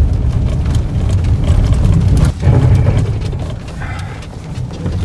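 A pickup truck driving over a bumpy, snow-covered track, heard from inside the cab: a heavy, steady low rumble of engine and tyres, broken by frequent knocks and rattles as the truck jolts over the bumps.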